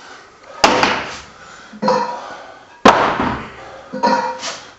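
Cast-iron weight plates clanking as they are lifted off a loading pin and set down on the floor. There are two loud clanks about two seconds apart, each ringing on, with lighter knocks in between.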